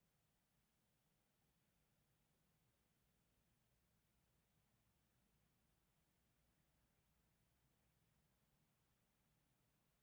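Very faint chirping of night insects over near silence: a steady high trill with a quick, regular chirp about four times a second.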